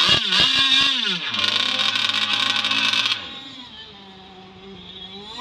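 Radio-controlled racing boats' engines running at high revs, their high-pitched whine sweeping down and up in pitch as the boats pass and turn, loud until about three seconds in, then fading to a fainter steady drone.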